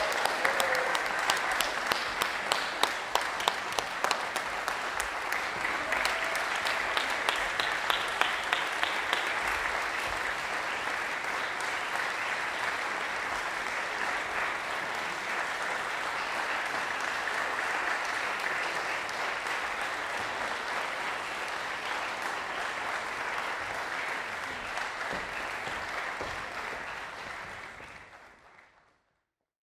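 Audience applauding steadily, with a few sharp, close claps standing out during the first several seconds; the applause fades out near the end.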